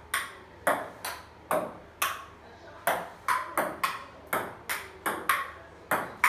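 Table tennis rally: a ping-pong ball bouncing on a wooden dining table and struck back and forth with paddles, a steady run of sharp clicks about two or three a second.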